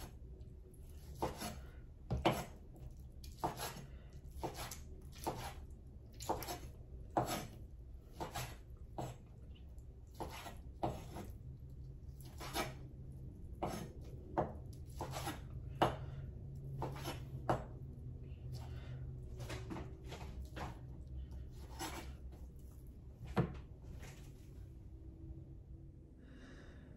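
Kitchen knife chopping cooked meat on a wooden cutting board: a steady run of knocks, one or two a second, thinning out and stopping near the end. A low steady hum runs underneath.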